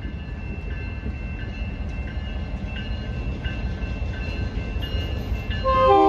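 Electronic grade-crossing bells (GS Type 2 E) ringing steadily, about three dings every two seconds, over a low rumble. Near the end a locomotive horn blasts in loudly, sounding a multi-note chord.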